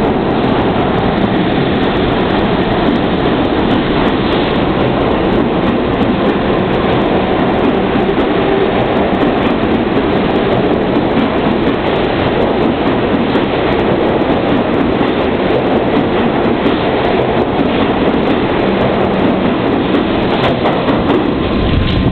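New York City Subway 7 train pulling out of the station and running past along the platform, loud and steady.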